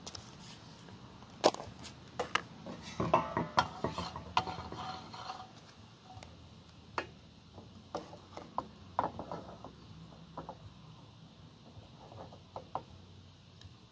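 Scattered clicks, knocks and rattles of cookware being handled at a portable butane camp stove: items set down on a wooden picnic table, something tipped into a frying pan and a wooden spatula moved in the pan. The loudest knock comes about a second and a half in, with a busier rattling stretch from about three to five seconds in.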